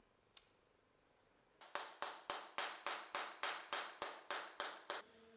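A sharp click, then about a dozen quick, even knocks, about four a second: blows seating the forged mason's hammer head onto its new walnut handle. A short ringing note follows the last knock.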